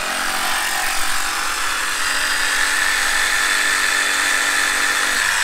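Electric power saw running steadily as it cuts through dry-fitted downspout drain pipe near an elbow.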